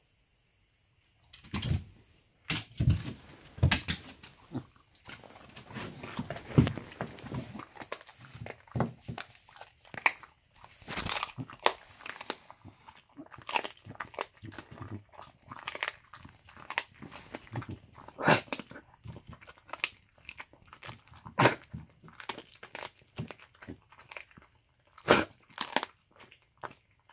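A dog crunching and chewing a duck-foot treat: irregular sharp crunches with softer chewing between them, starting about a second and a half in.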